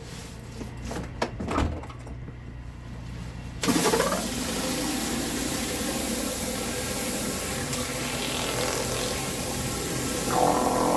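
Pressure washer: a low steady hum with a few knocks, then about four seconds in the high-pressure water spray starts suddenly and runs on as a loud, steady hiss of water on concrete.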